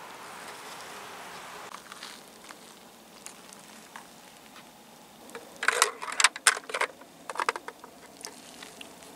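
Small hard-plastic toy figures and playset pieces handled and set down: a quick run of sharp clicks and clatter about halfway through, then a few more clicks a second later.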